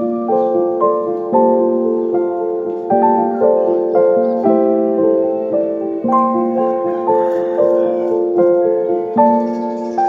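Background piano music: a slow, even melody with a new note about every half second, each note ringing and fading.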